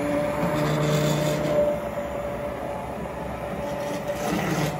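Handheld immersion blender running steadily, its motor whining with a constant pitch as the blade purées roasted tomatoes into soup.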